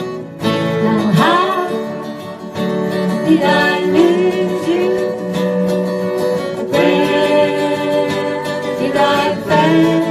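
Acoustic guitars playing an instrumental passage: strummed chords under a plucked lead line whose notes bend and slide.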